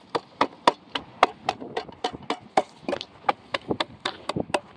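Knife chopping on a cutting board, an even run of about four chops a second.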